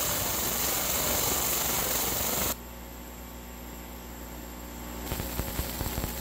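Laser engraver burning into a powder-coated manifold: a steady hiss that cuts off suddenly about two and a half seconds in as the beam stops, leaving the machine's quieter steady hum. Near the end the beam fires again and the hiss returns with a crackle of small ticks.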